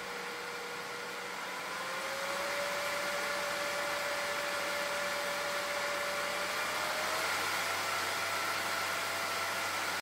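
PWM-controlled cooling fan of a Peltier mini fridge running, its whine and airflow noise stepping up as the fan speed is raised from 50% to 75% about two seconds in and to full speed about seven seconds in.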